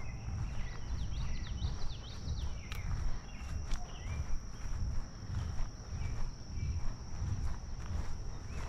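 Footsteps on a grassy path, low thuds at a walking pace, under a steady high-pitched insect drone, with birds chirping short sweeping notes, mostly in the first half.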